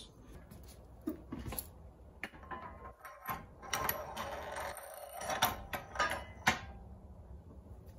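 Steel transmission parts, a gearbox mainshaft and its gears, being handled and set on the plates of a hydraulic press: a scatter of light metal clinks and knocks, busiest in the middle.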